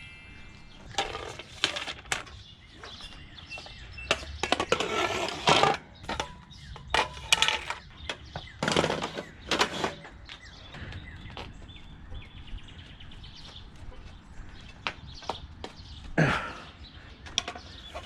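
Irregular clicks, knocks and short scrapes of old clamps and water-fed pole sections being handled and worked apart.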